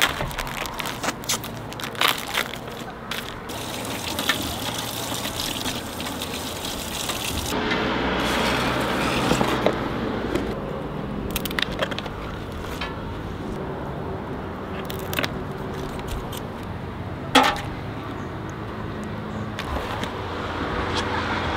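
Shrimp and a plastic box being handled at a sink: plastic clicks and rustles, with a spell of running tap water about eight seconds in and again near the end, and one sharp click about three-quarters of the way through.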